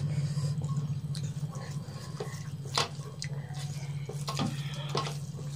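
Eating with the hands from steel plates: fingers squishing and mixing rice and egg curry, with scattered wet clicks and ticks, the sharpest about three seconds in. A steady low hum runs underneath.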